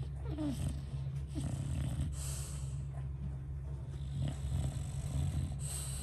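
English bulldog snoring in its sleep: a steady low rumble, with a hissing breath about two seconds in and another near the end.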